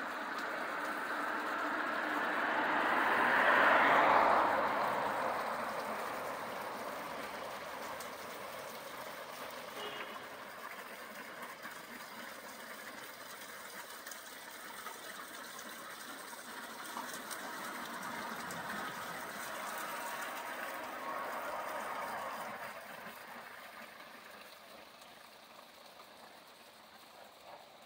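Road traffic: a passing vehicle's noise swells to a peak about four seconds in and fades away. A second, fainter pass swells and fades later on.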